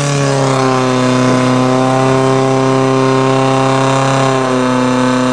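Engine of a portable fire pump held at full revs with a steady, unwavering pitch, driving water out of the pump into the attack hoses.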